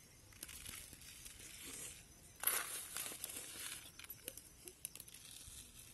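A bag crinkling as it is handled. The crinkle is loudest about two and a half seconds in, followed by a few smaller rustles and light ticks.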